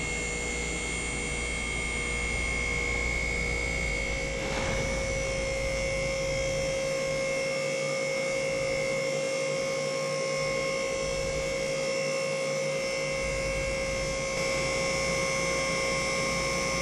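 MaxJax two-post lift's electric hydraulic pump motor running steadily as it raises a car, an even hum with a high tone above it and a slight shift in tone about four and a half seconds in.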